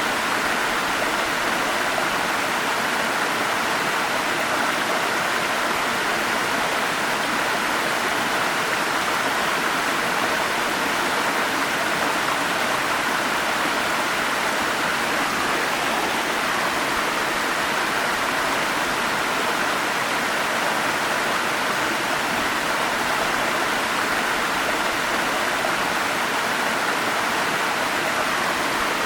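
Forest stream flowing, a steady, unchanging rush of water.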